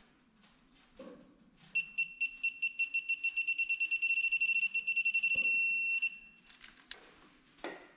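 Digital torque wrench beeping as a connecting-rod cap nut is pulled tight: the high beeps start about two seconds in and come faster and faster until they merge into one steady tone for about two seconds, the signal that the set torque has been reached. A few sharp clicks follow near the end.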